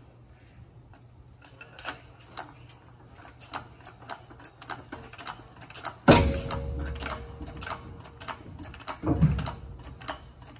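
Metal clicks and clanks from a railcar truck being raised on a hydraulic jack: a run of small sharp clicks, then a loud metallic bang about six seconds in that rings briefly, and a second heavy knock about three seconds later.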